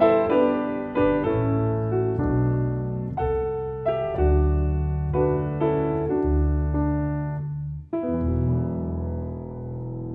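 Grand piano and double bass playing the closing bars of a tune: piano chords over deep low bass notes, then a final chord about eight seconds in that rings and slowly fades.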